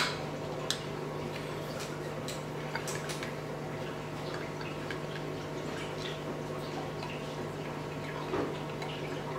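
Faint taps and scrapes of a silicone spatula against the glass bowl of a food chopper as crushed carrot is scraped out, over a steady low hum.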